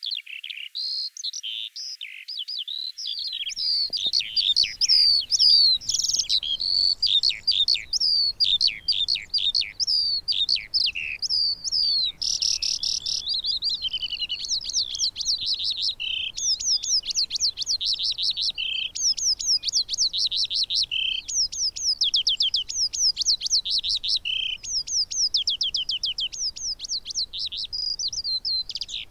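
Eurasian skylark singing a long, unbroken song of quick high warbled notes, sweeps and trills, with fast rattling trills in the second half.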